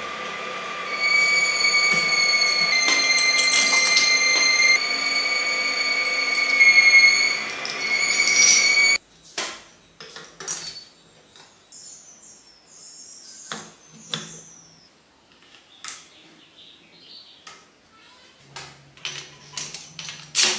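A steady machine whine with a few fixed tones, stepping slightly in pitch, runs for about nine seconds and cuts off suddenly. After it come scattered clicks and knocks, like metal parts being handled.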